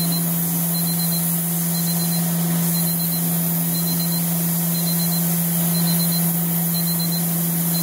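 Superheated steam hissing steadily from the charcoal gasifier's steam superheater, over a constant low hum.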